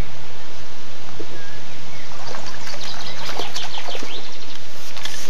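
Water splashing as a small hooked sturgeon is drawn into a landing net, with a cluster of splashes about two to four seconds in, over a steady hiss and some bird chirps.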